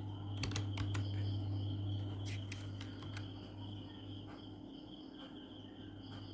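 Computer keyboard keys clicking in short irregular runs as text is typed, over a steady high-pitched trill and a low electrical hum.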